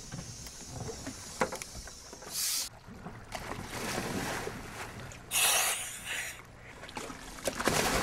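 Divers in dry suits and dive gear plunging into the sea from a boat: several rushing splashes, the loudest a little past halfway, over wind and moving water.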